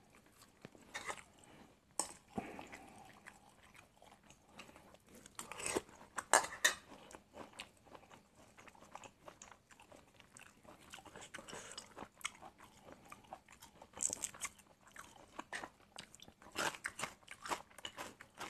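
Close-up chewing and mouth sounds of a man eating sticky rice with stir-fried angled gourd and egg: irregular soft wet clicks and smacks, busier around six seconds in, at fourteen seconds and again near the end.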